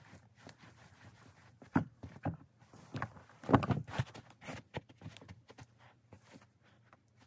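Crocs foam clogs stepping, scuffing and knocking on a carpeted floor as feet change from one pair into another. Louder thumps come about two seconds in, and the loudest cluster about three and a half seconds in.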